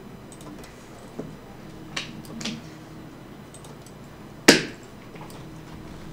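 Short, sharp clicks and taps of computer input at the desk: three softer ones in the first two and a half seconds, then one much louder knock about four and a half seconds in.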